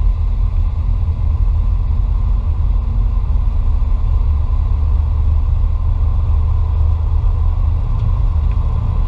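Flight-deck noise of a Boeing 727 Super 27 at speed low over the runway: a loud, steady, low rumble of airflow and engines with a faint steady whine above it.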